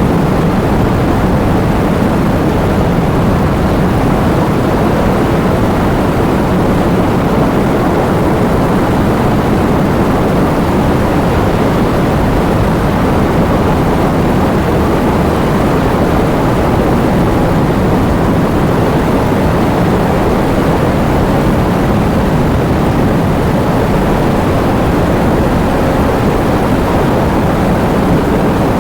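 Heavy rain pouring steadily, a dense even wash of noise with a deep low rumble.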